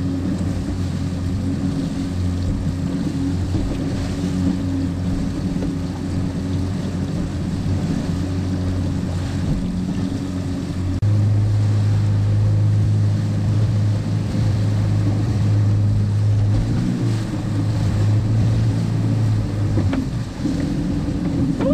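Motorboat engine running steadily under way while trolling, over water rushing along the hull and wind on the microphone. About halfway through, the engine note steps up slightly and gets louder, then eases back near the end.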